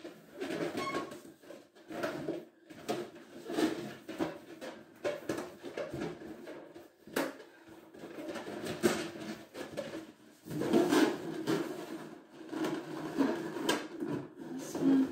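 Inflated latex balloons being handled, rubbed together and pressed against a wall: irregular rubbery rubbing and squeaking, with soft knocks.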